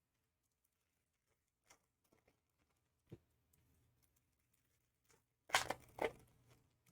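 A few light clicks and taps of trading cards being handled, then, about five and a half seconds in, a second-long crinkling tear of a foil card-pack wrapper being ripped open.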